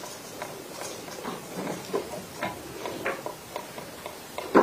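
Scattered small clicks and taps in a quiet courtroom, irregular at about two or three a second, with one louder knock near the end.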